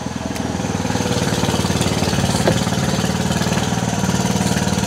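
Fishing boat's engine running steadily with a rapid, even chug, picking up slightly in the first second.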